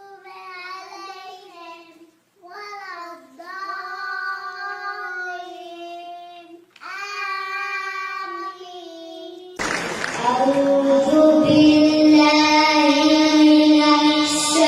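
A young child's voice chanting Quranic recitation in the drawn-out, melodic tajweed style, holding long notes in phrases with short breaths between them. About two-thirds of the way through it turns abruptly louder, with more hiss behind the voice.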